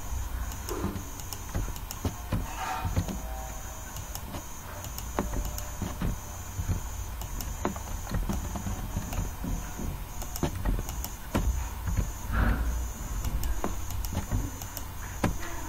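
Computer mouse clicks and keyboard key taps, irregular, while vertices are being moved in a 3D modelling program. Beneath them run a steady low hum and a faint high whine that keeps cutting in and out.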